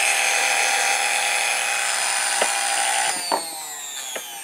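Freshly rewired Westinghouse sewing machine motor on its first test run, plugged straight into power and spinning at full speed with a steady whine and brush hiss. About three seconds in, the power is cut and the whine falls in pitch as the motor coasts down, with a few light clicks.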